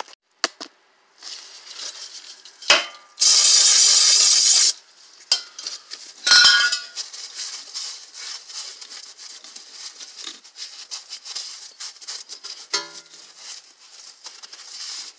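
Shop towel rubbed by a gloved hand inside the axle opening of the transaxle case: rustling and wiping with small clicks. About three seconds in, a steady hiss lasts about a second and a half and is the loudest sound. A short sharp clatter follows a little after six seconds.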